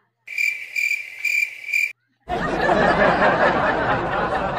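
A cricket-chirping sound effect: a steady high chirp pulsing about four times, starting and cutting off abruptly out of dead silence. A little over two seconds in, a group bursts into loud laughter and chatter.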